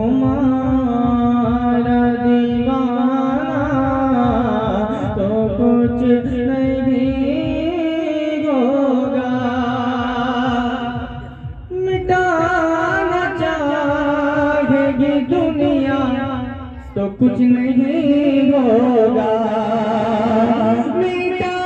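A man singing a devotional Urdu kalam solo, in long, ornamented held notes that waver in pitch. The voice breaks off briefly for a breath twice, about eleven and seventeen seconds in.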